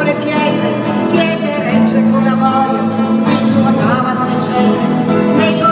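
A song playing: a singing voice over instrumental accompaniment.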